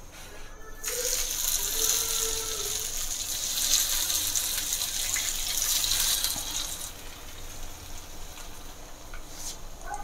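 Hot oil sizzling as slices of besan-coated colocasia leaf roll deep-fry in a pan. The sizzle starts abruptly about a second in, as fresh slices go into the oil, stays loud for about six seconds, then settles to a quieter steady hiss.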